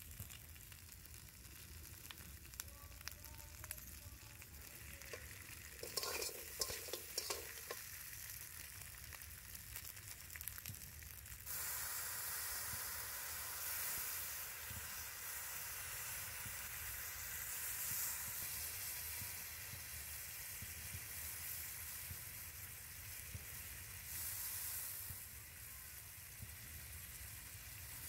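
Spiced crab pieces frying in oil in a metal wok, a steady sizzle with a short clatter of the metal spatula a little before the middle. A little before halfway the sizzle suddenly gets louder and brighter and stays that way.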